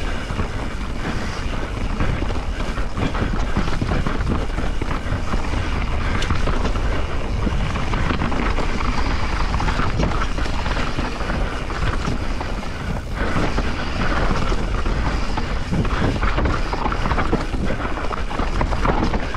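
Transition Spire 29er mountain bike descending a dry, loose dirt trail at speed: tyres rolling and skittering over the loose surface, with constant small knocks and rattles from the bike, under steady wind noise on the helmet or chest camera's microphone.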